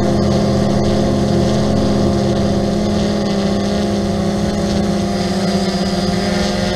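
Steady motor and propeller drone of an XK Detect X380 quadcopter hovering, picked up by the GoPro mounted on the drone itself. It is a constant whine with one strong low pitch and many overtones.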